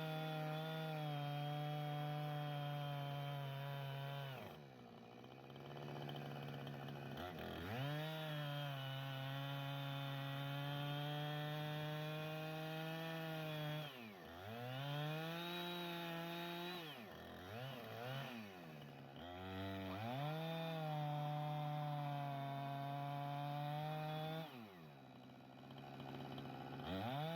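Chainsaw milling through a log with a Turbo Sawmill M8 attachment, running steadily at full throttle; several times the engine speed sags and then climbs back up.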